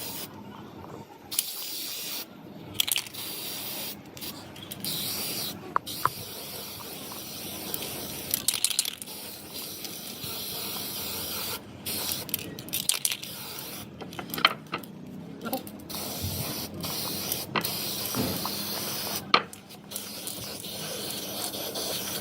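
Spraying hiss in repeated bursts that start and stop abruptly, with scattered sharp clicks and knocks in between.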